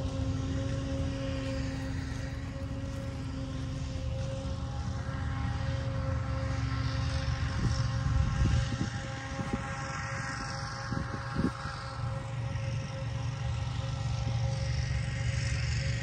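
A steady engine drone, even in pitch, over a low rumble, with a couple of soft thumps about eight and eleven seconds in.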